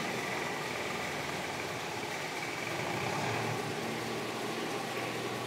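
Steady low background hum with a faint hiss and no clear events.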